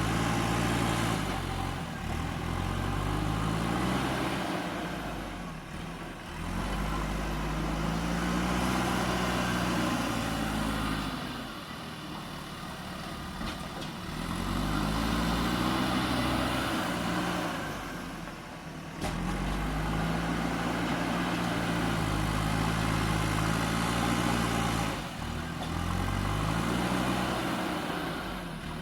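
JCB 3DX backhoe loader's diesel engine revving up and easing off again and again as it works loading soil, its pitch rising and falling every several seconds.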